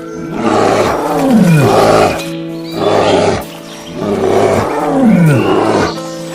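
A big cat roaring, the same roar with its falling pitch coming round twice, about four seconds apart, over steady background music.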